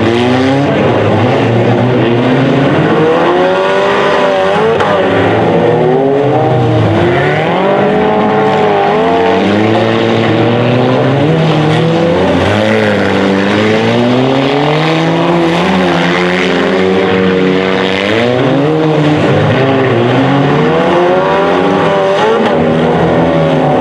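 Engines of several stock front-wheel-drive derby cars racing together, revving up and down over and over as they accelerate and lift, with several pitches rising and falling at once.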